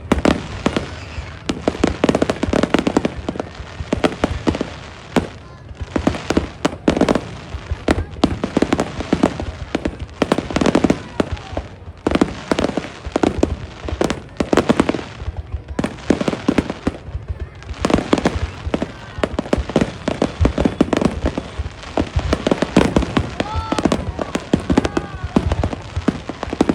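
Fireworks bursting in rapid, overlapping bangs, with crowd voices underneath.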